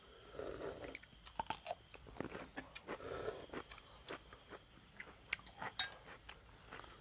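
A person chewing and crunching food close to the microphone: a string of short sharp mouth clicks and crunches, with a couple of softer, longer mouth sounds about half a second and three seconds in.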